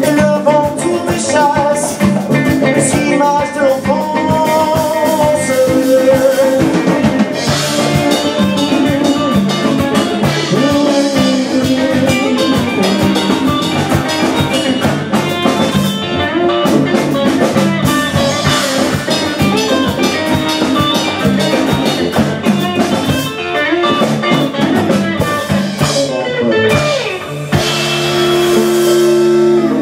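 Live band music: a strummed acoustic guitar and an electric guitar playing over a beat, ending on one long held chord a couple of seconds before the end.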